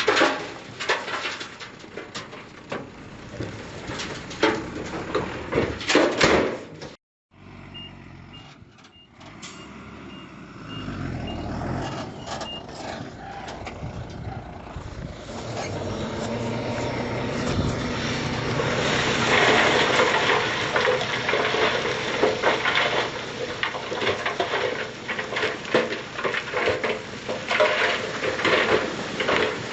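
Dump trucks working soil: clattering knocks first, then a reversing alarm beeping about twice a second for a few seconds while a diesel engine revs up. After that the truck's engine runs hard under load with steady rattling.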